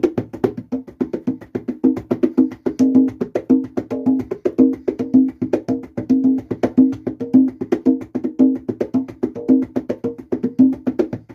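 Congas playing a steady salsa rhythm: a stream of quick hand strokes with ringing open tones.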